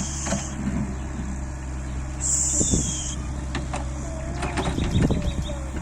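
Excavator's diesel engine running steadily at a low hum, with two bursts of high hiss and scattered knocks and short squeaks as the machine works.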